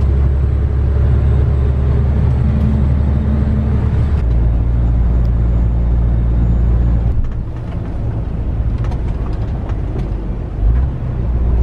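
Semi-truck diesel engine running under way, heard from inside the cab as a steady low drone. Its note steps down about four seconds in, and it goes quieter about seven seconds in.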